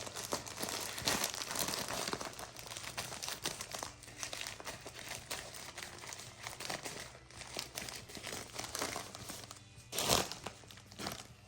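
Packaging crinkling and rustling as a mailed package of LEGO parts is opened by hand, with irregular small crackles and a louder spell of handling about ten seconds in.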